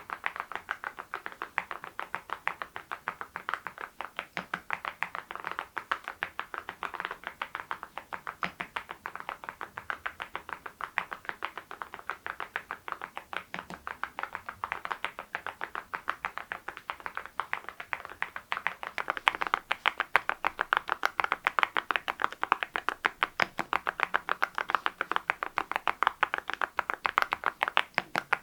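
Fast, continuous typing on a mechanical keyboard fitted with ceramic keycaps: a dense run of bright clacking keystrokes, which gets louder about two-thirds of the way in.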